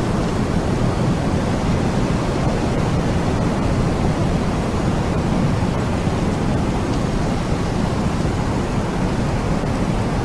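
Steady rushing noise with no clear tone, heaviest in the low range and unchanging in level.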